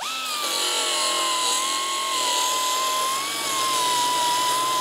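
Pneumatic air tool cutting a strip of sheet steel: a high, steady whine over a loud hiss, spinning up at the start and dipping slightly in pitch now and then as it bites into the metal.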